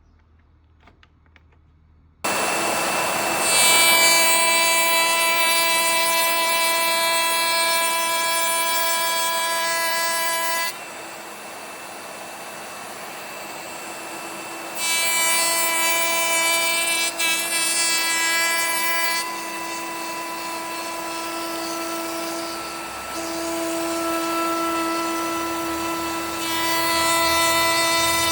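Makita router mounted in a router table switched on about two seconds in, running with a high, steady whine over the hiss of the cut. It is louder in stretches and quieter in between.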